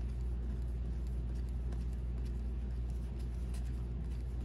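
A steady low hum of background room noise, with faint soft ticks of trading cards being handled.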